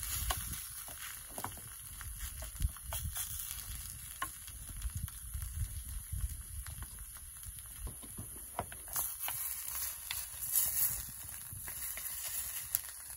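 Egg and onion frying in a pan, sizzling steadily, with a spoon stirring and scraping against the pan in scattered clicks.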